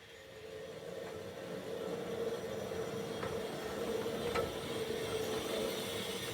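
Engine running, building up over the first two seconds to a steady hum.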